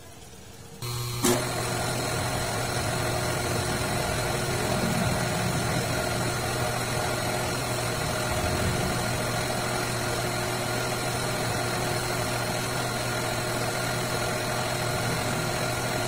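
Metal lathe switched on about a second in, with a short clunk as it gets going, then running steadily with its motor and gearing humming at a constant speed.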